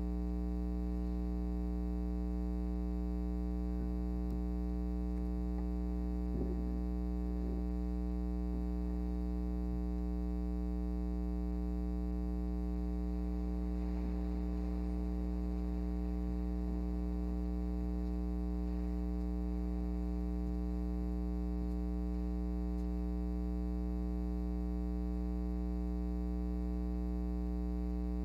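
Steady electrical mains hum with a dense ladder of overtones, running unchanged throughout. A few faint knocks and shuffles sound about a third of the way in and again around the middle.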